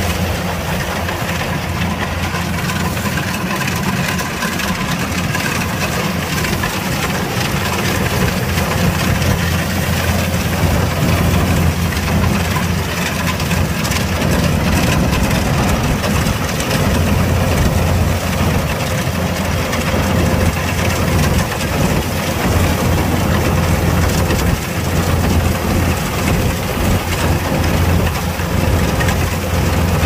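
Kubota DC105X combine harvester running steadily with a low engine hum, getting a little louder about eight seconds in.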